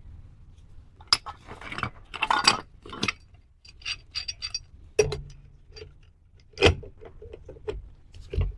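Metal hand tools and brass fittings clinking and clattering as they are handled, a run of irregular sharp knocks with a few louder ones.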